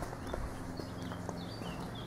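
Footsteps on an asphalt lane, about two a second, while small songbirds chirp and twitter. From about a second in the birds get busier. A steady low hum runs underneath.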